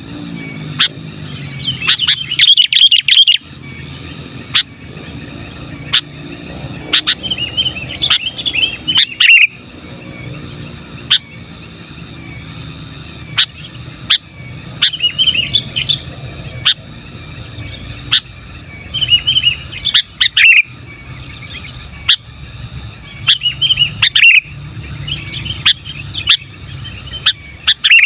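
Sooty-headed bulbul singing loudly and persistently: bubbly, warbling phrases come every few seconds, with short sharp single chirps between them.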